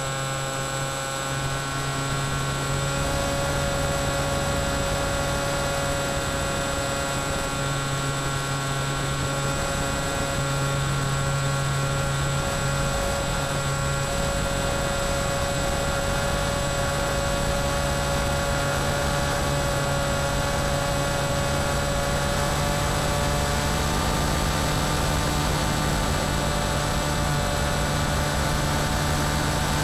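Brushless electric motor and pusher propeller of an FX-61 Phantom flying wing, heard from the onboard camera in flight: a steady whine whose pitch steps up slightly about three-quarters of the way through.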